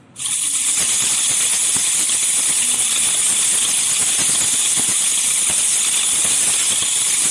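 Loud, steady hiss that starts abruptly just after the start and holds at an even level, with faint scattered ticks beneath it.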